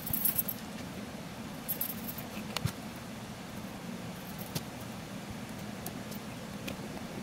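Light metallic clicks and jingles as a tape measure and a steel rule are handled and set down on a plywood box lid, with a few sharp taps near the start and around two seconds in, over a steady low shop hum.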